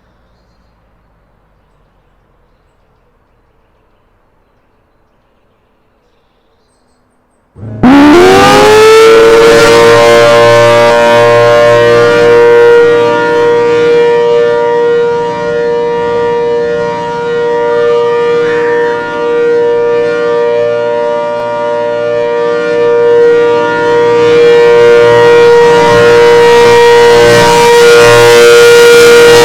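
ACA Hurricane outdoor warning siren sounding a test. After several seconds of faint background it starts suddenly, winds up quickly in pitch and then holds a loud, steady chord of several tones, the level dipping slightly and swelling back as it runs.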